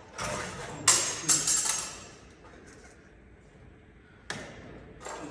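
Clattering knocks and scraping of parts being handled: a burst at the start with two sharp knocks about a second in, a quiet gap, then another knock and scrape near the end.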